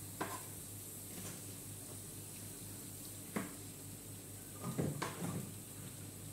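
A few scattered knocks and clinks of kitchen utensils and containers being handled, about a second apart and then a small cluster near the end, over a steady low hum.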